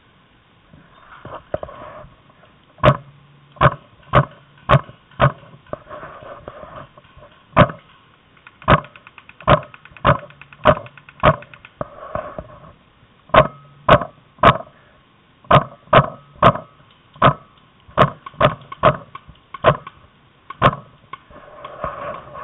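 Paintball markers firing: a long run of sharp pops, irregular and a few a second, with a quick burst of rapid shots about nine seconds in.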